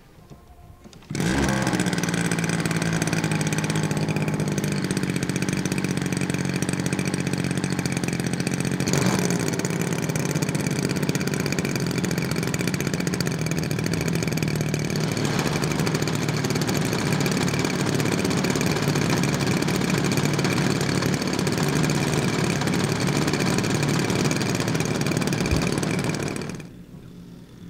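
Model-aircraft gasoline engine catching about a second in and then running at idle, its pitch shifting a few times as it settles. The sound breaks off abruptly near the end.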